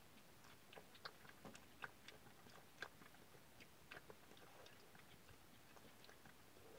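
An American badger feeding with its muzzle in a plastic bowl: faint, irregular mouth clicks and smacks, thickest in the first four seconds or so, then thinning out.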